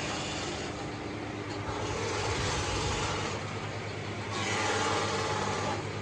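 Sawmill machinery running steadily with a low hum, with two louder stretches of higher-pitched noise, about two seconds in and again around four and a half seconds in.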